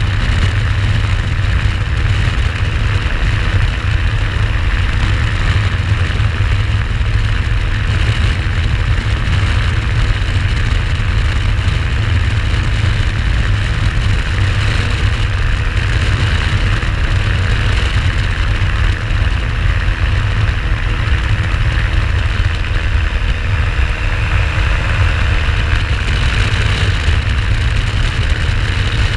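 Flex-wing microlight trike in cruise flight: its engine and propeller run at a steady drone, under a heavy low rumble of wind on the microphone in the open cockpit.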